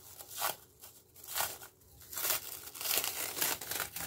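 Plastic cling film crinkling as it is peeled back from the rim of a bowl, in a string of irregular rustles.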